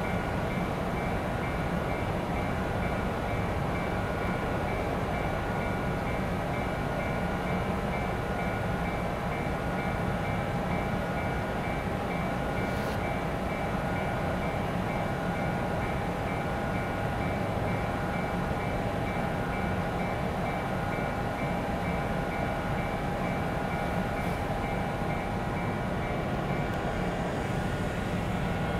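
Steady hum of a stationary electric commuter train's onboard equipment, with a few steady whining tones over a low drone that does not change.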